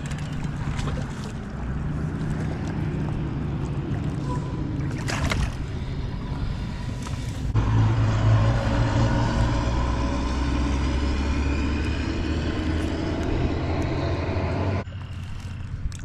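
A motor vehicle's engine running with a low hum and a stack of overtones. It starts suddenly about halfway through and cuts off shortly before the end; before it there is only a quieter rushing noise.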